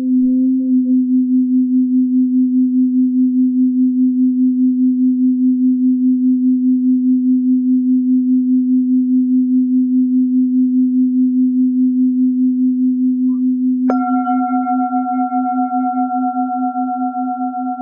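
Tibetan singing bowl tuned to C4, sung by rubbing a mallet around its rim: one steady low tone that pulses evenly about three times a second. About fourteen seconds in, the bowl is struck, adding bright higher ringing tones over the hum, which then slowly fade.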